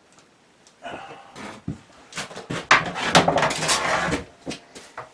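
A long metal mounting rail being handled against a wall and solar panel: scrapes and knocks, with a louder stretch of scraping and clanking in the middle and a few lighter knocks near the end.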